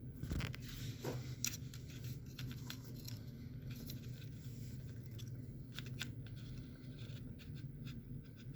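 Soldering work at the bench: small irregular clicks and scrapes of a soldering iron and tools against a circuit board's pins, densest in the first second and a half, over a steady low hum.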